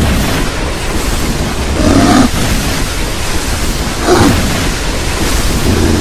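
Custom kaiju roar sound effect for King Ghidorah, layered from animal and monster roars such as tiger, lion and dinosaur. It is a continuous rushing, rumbling roar with short higher-pitched cries about two seconds in and again about four seconds in, and another starting near the end.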